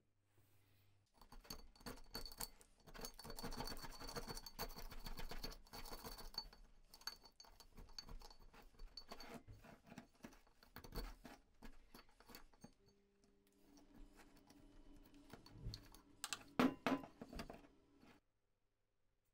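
A thin metal tool scraping and picking rust and dried crud out of the corroded pivot casting of an old potato slicer, a dense run of small metal-on-metal clicks and scrapes. Near the end a faint steady hum comes in, with a few sharper knocks.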